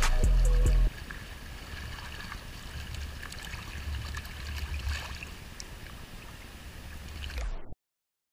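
Creek water running, with a low rumble underneath. Music plays and stops abruptly about a second in, and the sound cuts off to silence near the end.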